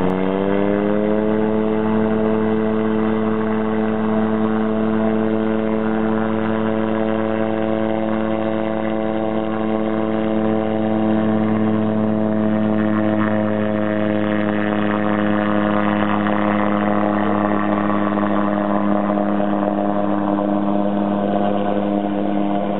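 Engine and pusher propeller of the Atol amphibious light-sport seaplane running at high power through its takeoff and low pass: a steady drone that rises a little in pitch at first, then holds.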